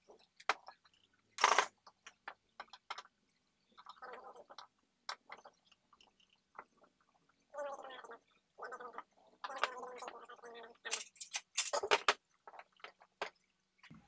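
Screwdriver turning out the screws of a computer power supply's metal cover, in several short scraping spells, amid scattered clicks and knocks as the case is handled. The loudest knocks come about a second and a half in and near the end.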